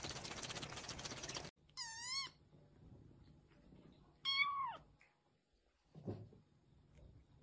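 A steady hiss cuts off about a second and a half in. Then a small tabby kitten mews twice, high-pitched and wavering, the second mew louder and dropping in pitch at its end.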